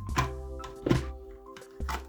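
Background music with steady held tones, over three sharp clicks or knocks from handling the parts of the steam iron being repaired.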